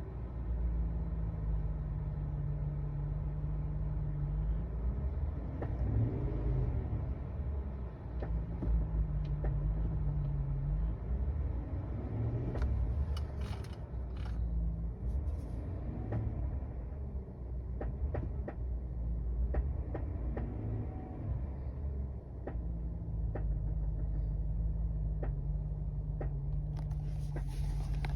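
2021 GMC Sierra's 6.2-litre V8 running, its speed rising and falling several times, with sharp knocks and ticks, most frequent through the second half. The owner calls it an engine knock that has returned for the second time in less than six months.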